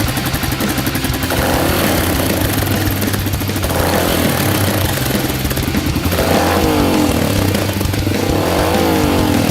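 Yamaha XTZ125's single-cylinder four-stroke engine running through an aftermarket salami-cut silencer, its pitch climbing and dropping several times in the second half.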